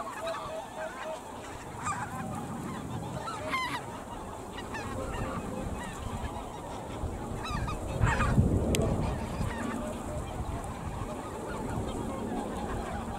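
Snow geese on the water calling with scattered short honks, some in quick runs. A low rumble swells and peaks about eight seconds in.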